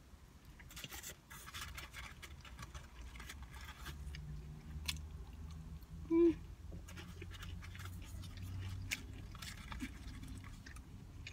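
Close-up chewing and mouth sounds of someone eating a burger and fries, with many small crunches and clicks, densest in the first few seconds. About six seconds in comes a short pitched sound from the voice, the loudest moment.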